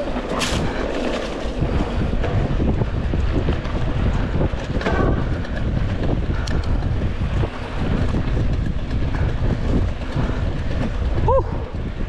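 Wind buffeting an action camera's microphone over the steady noise of a mountain bike riding a dirt trail, with scattered short clicks and rattles.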